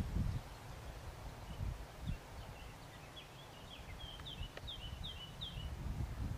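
A songbird singing a quick series of short, falling chirps, most of them in the second half, over a low, uneven rumble of wind on the microphone.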